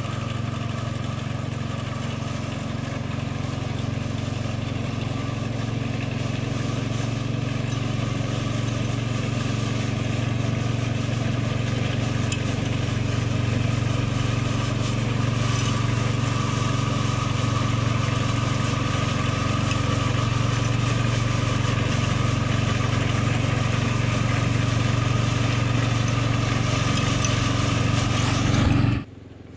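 Ride-on mower engine running steadily, growing gradually louder, then stopping abruptly about a second before the end.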